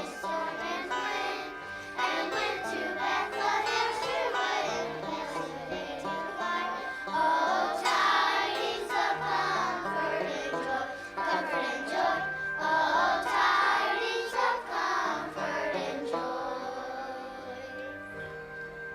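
Children's choir singing a song over an instrumental accompaniment; the voices stop about three-quarters of the way through and the accompaniment fades out.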